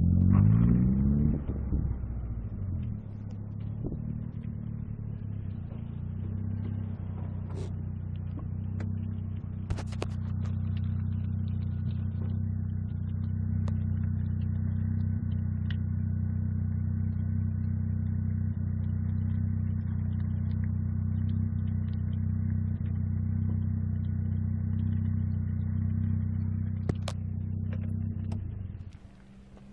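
Car engine running with a steady low hum, its pitch shifting in the first couple of seconds and then holding even, with a few sharp clicks; the engine sound drops away abruptly near the end.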